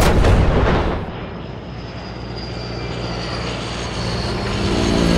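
A loud gunshot burst at the start that dies away within about a second into a low, steady rumbling drone; pitched music tones swell in near the end.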